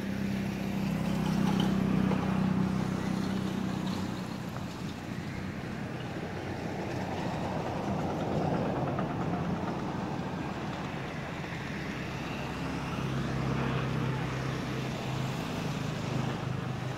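A steady low engine hum of motor traffic, loudest in the first few seconds and rising again at a lower pitch near the end.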